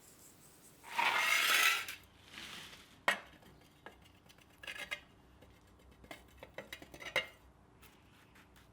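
Forge scale being scooped and poured with a metal tool: a loud gritty pour lasting about a second, starting about a second in, then a sharp clink and scattered light metallic clinks and taps.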